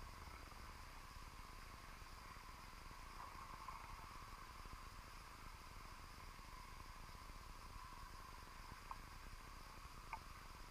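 Faint underwater ambience picked up through a camera housing inside a submerged crab pot: a steady low rumble and hiss with a thin high whine, and a few small clicks near the end.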